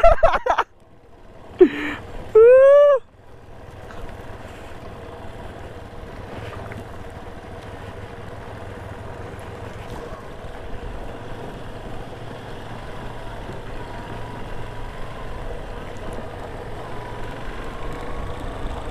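Motorcycle riding a rough dirt road, its engine running under steady wind and road noise that slowly grows louder. A brief loud voice call comes about two seconds in.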